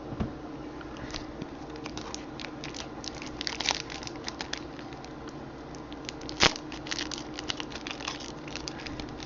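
Irregular crinkling and clicking of plastic and paper packaging being handled, with one sharper click about six and a half seconds in.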